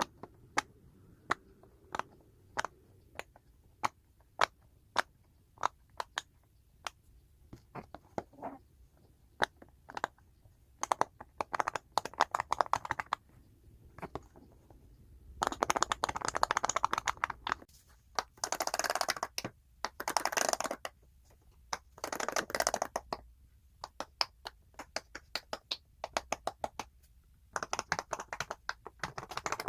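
Silicone pop-it fidget toy being pressed bubble by bubble: single crisp pops about two a second for the first ten seconds or so, then quick runs of rapid popping separated by short pauses.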